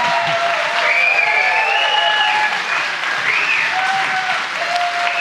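Theater audience applauding steadily, with a few pitched voices calling out over the clapping.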